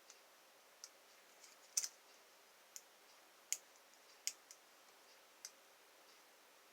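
Lock-picking tools working the pins of a pin-tumbler lock: about nine small, sharp clicks at irregular intervals, the loudest a close double click about two seconds in.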